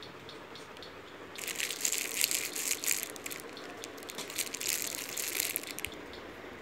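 Thin clear plastic bag crinkling as it is handled and pulled off a rubber air-blower bulb, starting about a second and a half in and stopping near the end.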